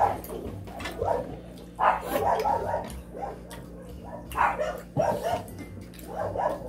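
A dog barking in short, repeated bursts, about once a second.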